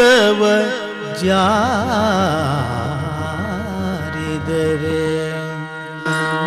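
Yakshagana music: a singer holds long, heavily ornamented notes with a fast, deep waver over a steady drone. The melodic line breaks off briefly about a second in, then resumes and fades out near the end.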